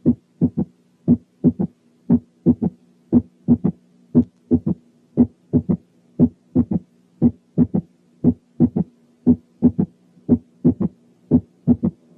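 Stethoscope recording of a heartbeat with a third heart sound (S3): in each beat a first sound, then the second sound closely followed by a third, at about one beat a second. A steady low hum runs underneath.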